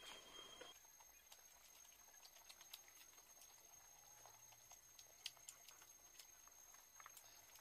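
Faint, scattered clicks of chewing and lip-smacking from people eating rice and chicken curry by hand.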